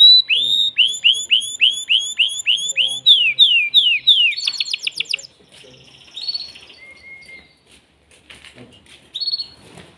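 Excited male canary singing: a run of loud whistled notes, each sweeping downward, about three a second, breaking into a fast trill about four seconds in. After that come sparser short notes and faint scattered clicks.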